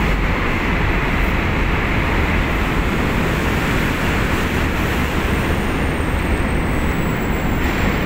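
Steady, loud machinery rumble with a constant noisy hiss in the enclosed vehicle deck of a ro-ro ship; a faint thin high whine sets in about five seconds in.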